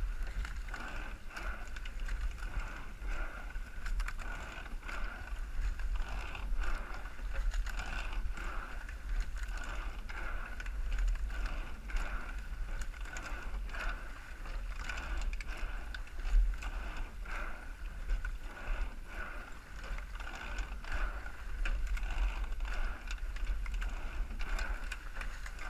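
Eight-oared rowing shell under way at race pace: oars knocking in their oarlocks and sliding seats rolling with each stroke, a rhythmic run of faint clicks and clunks over water noise and a low rumble.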